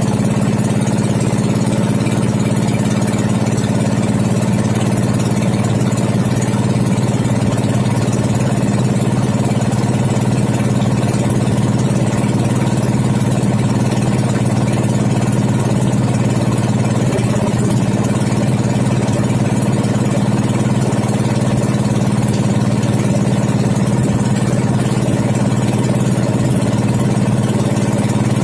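Motorized outrigger banca's engine running steadily, a constant low drone that holds the same pitch and level throughout.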